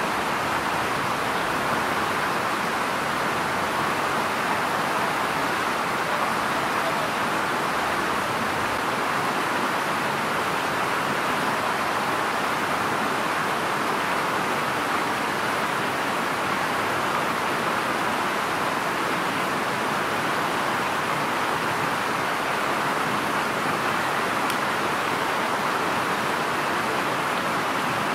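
A steady, even rushing hiss that does not change in level.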